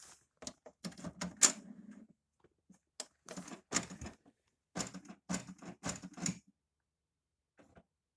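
Clicking and tapping on a computer keyboard and mouse, in irregular short clusters that stop about six and a half seconds in.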